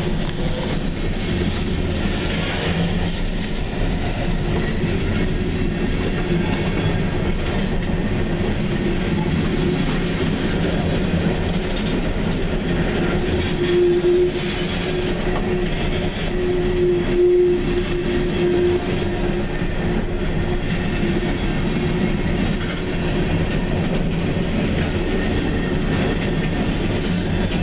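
Empty coal cars of a freight train rolling past on a curve: a steady rumble of steel wheels on rail, with a thin wheel squeal that swells about halfway through.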